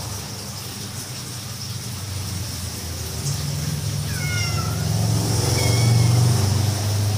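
Cat meowing: two short high calls that fall in pitch, about four and six seconds in. Under them a low rumble grows louder from about three seconds and peaks near the end.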